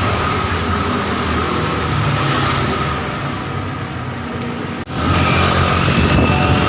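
Steady engine and road noise of a moving vehicle. It breaks off abruptly about five seconds in and comes back louder.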